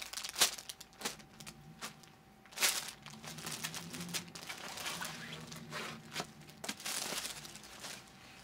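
Intermittent crinkling of a clear plastic bag and rustling of folded fabric as an embroidered French crepe suit is pulled out and unfolded, with sharper crinkles about half a second in and near three seconds, over a faint steady hum.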